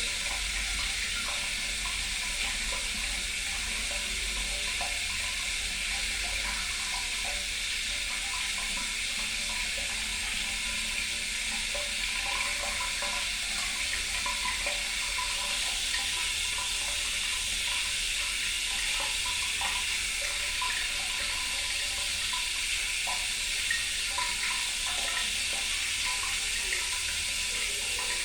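Water running steadily, like a tap pouring into a sink, an even rushing hiss with small scattered bubbling splashes.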